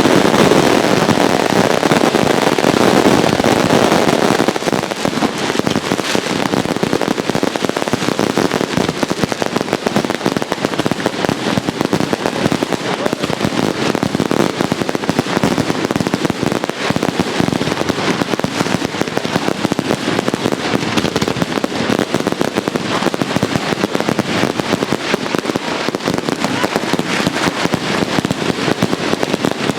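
Fireworks going off without pause: a dense crackle of many rapid bangs and pops, loudest for the first four seconds and then a little lower.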